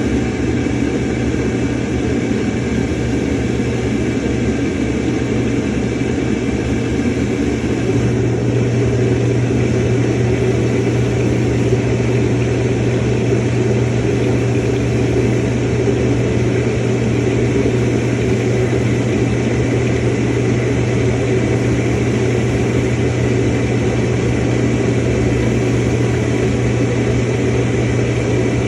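Samsung washing machine running, a steady low hum with an even rushing noise over it.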